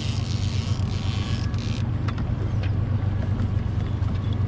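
Fishing boat's motor running steadily at a low drone, with a hiss for the first couple of seconds.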